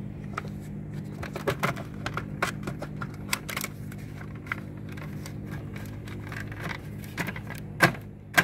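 Irregular plastic clicks and rattles as engine wire harnesses are pressed back into their plastic retaining clips, with two louder snaps near the end. A steady low hum runs underneath.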